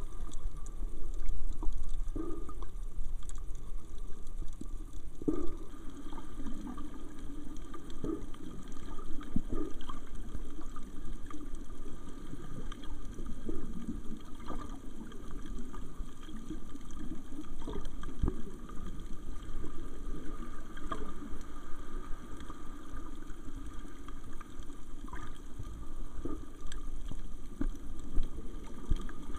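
Muffled water sounds picked up by an underwater camera: a steady low sloshing and gurgling with scattered small clicks.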